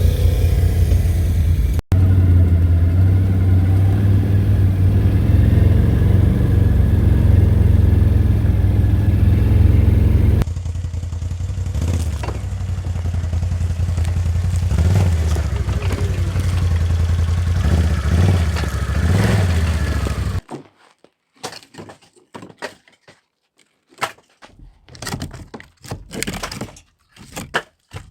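Small gasoline engine running steadily, with knocks and clatter of firewood. After about twenty seconds the engine stops, leaving scattered sharp knocks of wood.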